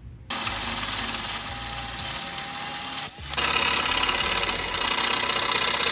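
Power drill boring a hole through a metal support bracket for a rivnut, in two runs of about three seconds each with a short break between them.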